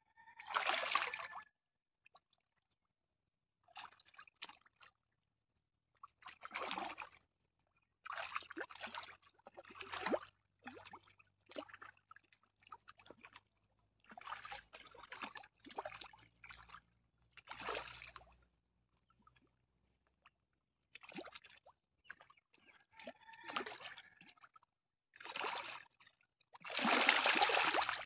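Water splashing and sloshing in about a dozen short, separate bursts with quiet gaps between them, the longest and loudest near the end.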